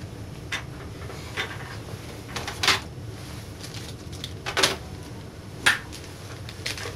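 Hands handling small objects: five separate sharp clicks and knocks, spaced irregularly, over a low steady hum.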